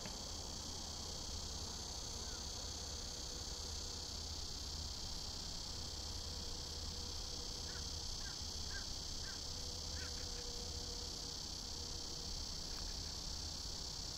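Steady chorus of crickets or similar insects in the grass, with a low rumble underneath and a few faint short chirps about two-thirds of the way through.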